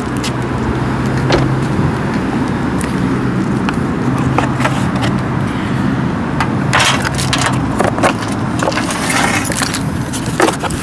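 Handling noise as someone climbs out of a car and moves to its engine bay: scattered knocks and clicks, rustling and keys jangling, over a steady low hum. The knocking and rustling bunch up about two-thirds of the way through and again near the end.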